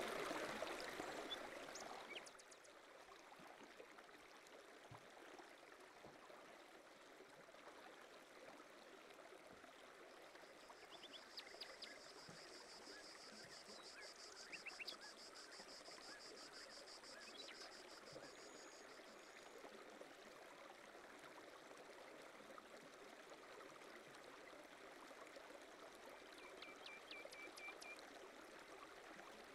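Faint, steady lapping and trickling of pond water at a rocky shoreline. A high, rapid trill sounds for several seconds midway.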